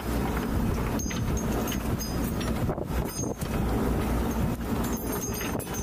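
Mark VI patrol boat running fast under way: a steady low rumble of its twin diesels and waterjets mixed with the rush of wake water and air.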